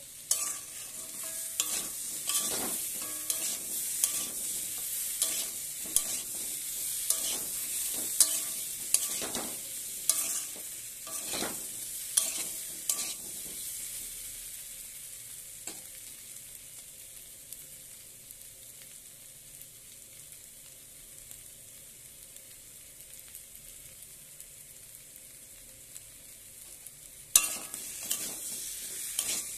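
Spatula stirring and scraping small boiled potatoes and spice mix around an aluminium kadai while the oil sizzles. Strokes come about once a second for roughly the first half, then stop, leaving a quieter steady sizzle, and a sharp knock on the pan about 27 seconds in starts the stirring again.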